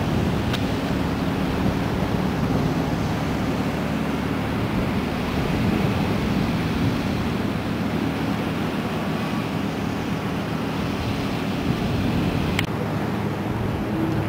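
Steady low engine drone mixed with wind noise on the microphone and the wash of water.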